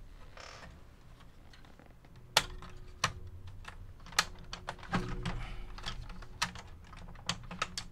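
Plastic clips and front cover of a Sony EV-S9000E video recorder clicking and knocking as the cover is worked loose: a string of sharp clicks, the loudest about two and a half seconds in.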